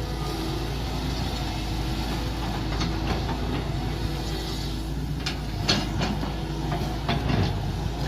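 Mini excavator's engine running steadily under digging work, with several sharp knocks and clanks from about halfway through.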